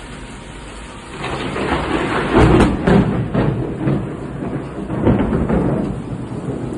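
Steady rain with a roll of thunder that swells about a second in, peaks near the middle, swells again later and keeps rumbling.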